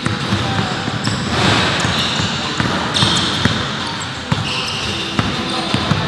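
Indoor pickup basketball game: a basketball bouncing on the court several times amid players' background voices.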